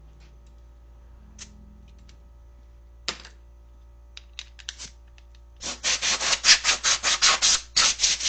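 A few light clicks and taps, then a quick run of rasping back-and-forth scraping strokes, about five a second, starting a little past halfway and stopping at the end.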